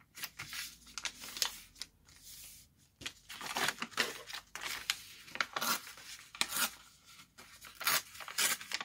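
Coffee-dyed paper being torn by hand along a fold, in a run of short, irregular rips.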